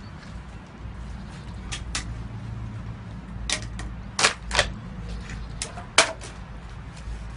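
Sharp clicks and knocks of hard objects being handled, seven or so at uneven intervals over a steady low background rumble, the loudest about six seconds in.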